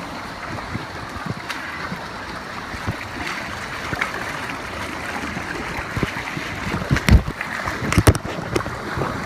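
Creek water running steadily through a slot canyon, with a few short sharp thumps or splashes, the loudest about seven and eight seconds in.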